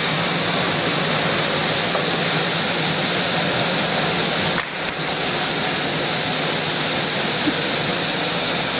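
Double-shaft multi-rip circular saw machine running with a steady, loud rushing noise as a log cant is ripped into several boards at once, dipping briefly about halfway through.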